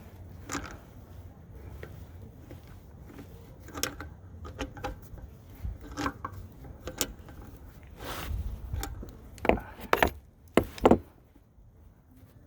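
Metal hand tools clicking and scraping as a screw extractor (easy out) is turned to back out a broken axle bolt. Scattered light clicks, then a quick run of four sharp, loud metallic clacks near the end.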